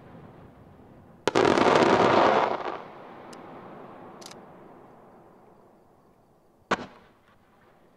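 Aerial firework shells bursting: a loud report about a second in that rolls on and echoes for over a second before fading, two faint pops, then one sharp bang near the end.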